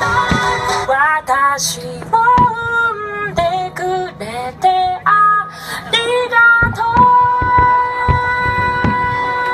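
A woman singing a Japanese ballad, her line ending in one long held note. Fireworks thud beneath the song, mostly in the second half.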